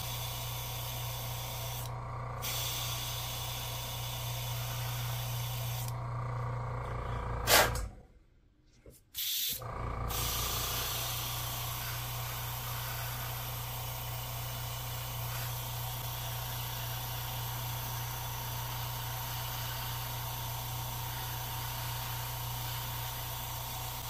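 Airbrush spraying paint: a steady hiss of air and paint that stops briefly about two seconds in and again around six seconds, as the trigger is let off, over a low steady hum. A sharp knock comes near eight seconds in, then the sound drops out completely for about a second and a half.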